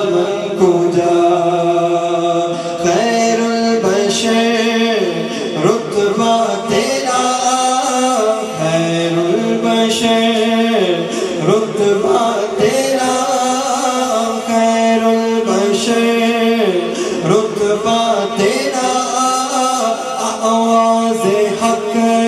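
A man singing a devotional Islamic nasheed into a microphone, unaccompanied, in long held notes that slide and waver between pitches.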